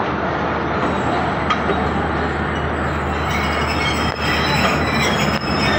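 Tezgam passenger train's coaches rolling slowly into the platform with a steady rumble. About halfway through, thin high-pitched wheel squeal creeps in and grows as the arriving train slows.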